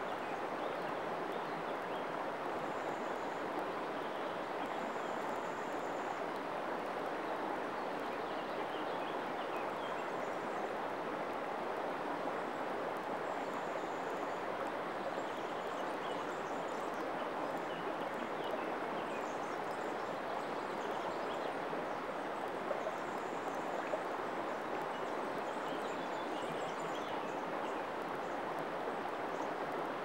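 Shallow river water running over a stony, pebbled bed: a steady, even rushing of water. Faint high chirps sound a few times over it.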